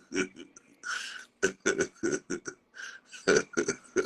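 A man's voice in short, broken bursts.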